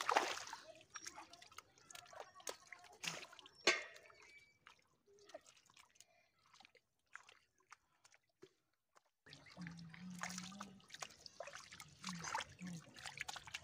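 Hands digging and scooping through wet mud and shallow water, making squelches, drips and short splats. The loudest splats come at the very start and about four seconds in, then it goes almost silent for a few seconds before the wet squelching and splashing return. Low voices are heard near the end.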